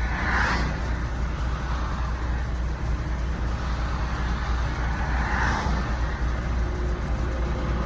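A truck engine idling with a steady low hum at the roadside, with highway traffic rushing past twice: once about half a second in and again about five seconds in.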